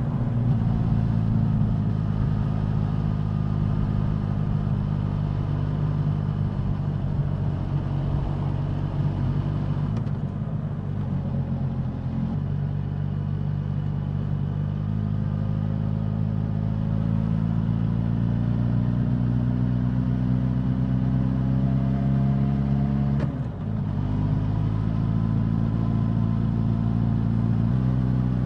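Suzuki GSX-S1000 inline-four engine and exhaust under way, engine note climbing slowly then dropping sharply with a brief dip in loudness about 23 seconds in, as at a gear change; other shifts in pitch come around 12 seconds and near the end.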